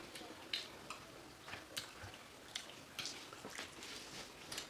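Faint, irregular small clicks and soft squishes of fruit being peeled by hand and chewed.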